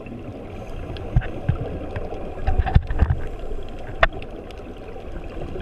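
Muffled underwater noise heard through a sealed camera housing, with scattered clicks and knocks: one a little over a second in, a louder cluster of low knocks around the middle, and a sharp click about four seconds in.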